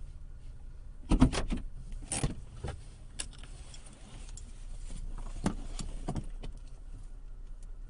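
Toyota Tacoma pickup with a low rumble, and rattling clicks that come in a quick cluster about a second in, then singly now and then. This is the rattle from the rear passenger side that the owner cannot trace; he wonders whether the bed, refitted after body repair, has come loose.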